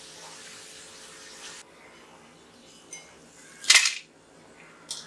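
Chapati strips deep-frying in hot oil in a kadhai, a steady sizzling hiss that cuts off suddenly about a second and a half in. Then a couple of light clicks and, about three-quarters of the way through, one short, loud clatter.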